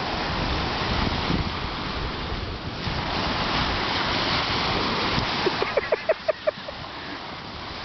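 Surf washing on the shore with wind buffeting the microphone. Past the middle comes a quick run of about seven short, high-pitched squeaky sounds.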